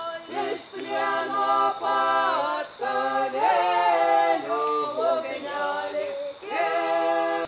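Several voices singing a cappella, holding notes of about a second each and moving between chords with short slides in pitch.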